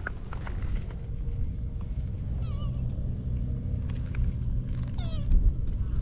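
A cat meowing twice, two short calls about two and a half seconds apart, the second falling in pitch, over a low rumble of wind on the microphone.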